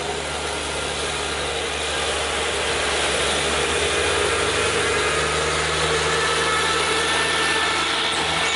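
Heavy diesel truck engines running steadily with a mechanical rattle, growing a little louder about two to three seconds in.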